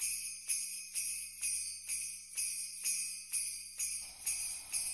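Jingle bells shaken in a steady rhythm, about two shakes a second.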